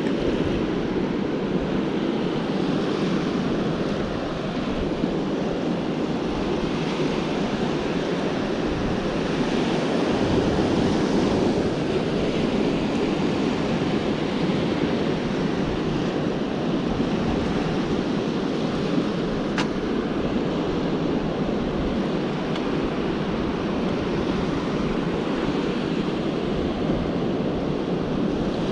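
Steady wash of ocean surf on the beach, with wind buffeting the microphone.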